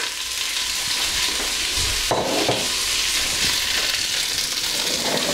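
Onions and carrots sizzling steadily in olive oil in a stainless steel pot, stirred with a wooden spoon.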